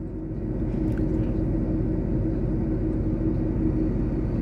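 Scania R450 13-litre inline-six diesel running under engine braking in a low manual gear, holding the truck back on a steep downhill. A steady low drone that swells over the first second, then holds even.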